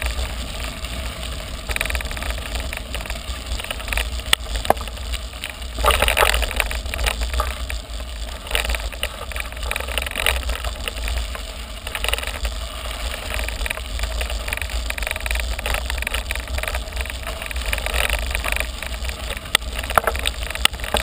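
Mountain bike climbing a gravel road: tyres crunching over the gravel, with scattered clicks and rattles from the bike, over a steady low rumble of wind on the microphone.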